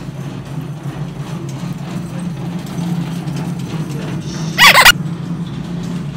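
Steady low hum of a big-box store interior, broken about four and a half seconds in by one brief, loud squeal.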